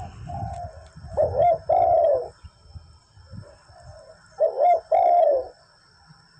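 Spotted dove cooing: two loud phrases about three seconds apart, each two short coos followed by a longer, slightly falling note, with fainter coos in between and near the end.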